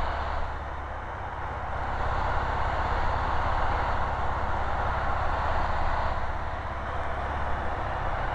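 Cessna 150's Continental O-200 four-cylinder engine and propeller droning steadily, with wind rush, in flight on the landing approach with carburettor heat on. The level dips slightly about a second in and builds back up.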